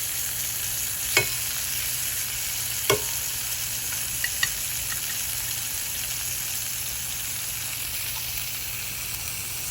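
Chicken frying in olive oil in a pan, a steady sizzle, with four sharp knocks against the pan in the first half.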